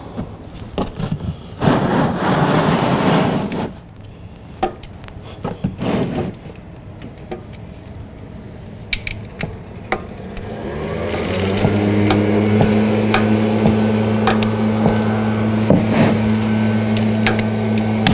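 Socket wrench ratcheting in short clicking runs as the motorcycle's oil drain plug is tightened to torque, with some scraping of tools. About ten seconds in a motor starts up and runs on with a steady hum, louder than the clicks.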